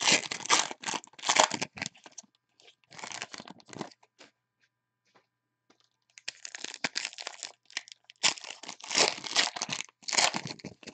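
Foil trading-card pack wrappers being torn open and crinkled by hand, in several bursts with a lull of about two seconds near the middle.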